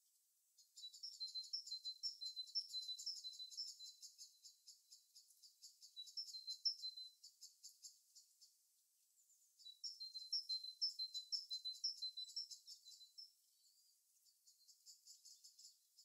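A small songbird singing high-pitched songs made of rapid, quickly repeated notes. One long run goes from about half a second in to about eight seconds, a second from about ten to thirteen seconds, then fainter notes near the end.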